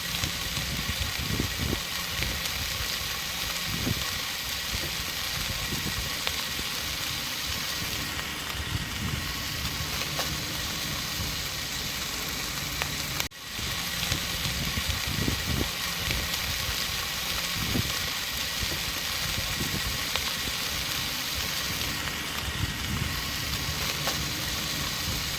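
Salted chicken neck meat sizzling as it grills over a wood campfire, a steady hiss with irregular small crackles and pops from the fire. It breaks off for an instant about thirteen seconds in, then carries on.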